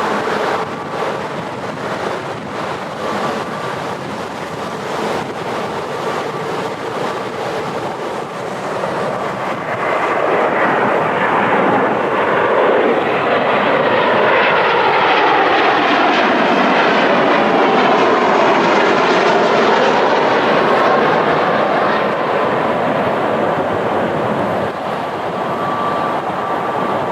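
Embraer E170 regional jet on landing approach passing close by: its turbofan engine noise swells about ten seconds in, is loudest through the middle with a pitch that sweeps as it goes past, then eases off. Gusting wind buffets the microphone before the jet arrives.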